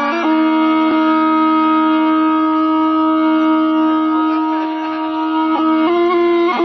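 Tarpa, the Adivasi gourd-and-bamboo wind instrument, being blown: one long held note over a steady lower drone, breaking into a quick, changing melody near the end.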